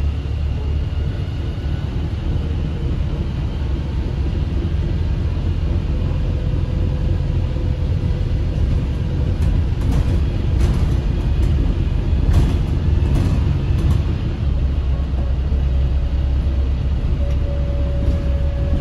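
Interior ride noise of a Volvo B5TL diesel double-decker bus under way: a steady low engine and road drone. A few rattles from the body and fittings come about ten to fourteen seconds in, and a faint whine comes and goes.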